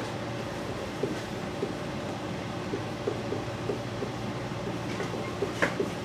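Marker writing on a whiteboard: a string of short, faint squeaks and taps, over a steady room hum.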